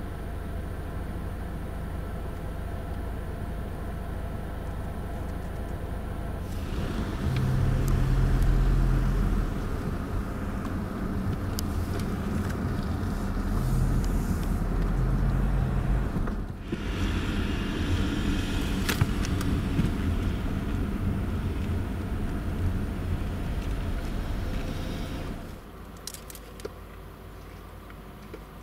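A car's engine and road noise heard from inside the cabin. It idles at first, then pulls away about a third of the way in, and runs with a heavier rumble with a brief dip in the middle. Near the end it slows to a stop and settles back to a quieter idle.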